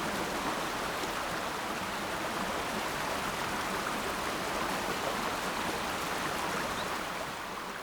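Fast mountain stream rushing over rocks, a steady even rush of water that eases a little near the end.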